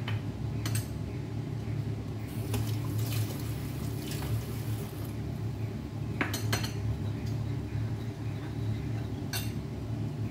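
Steel cookware and utensils clinking now and then, with a few sharp metal clinks and a stretch of hiss about two to five seconds in, over a steady low hum.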